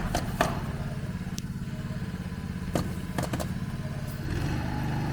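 An engine running steadily with a fast low pulse, picking up and growing louder about four seconds in. Several short, sharp clicks or knocks sound over it.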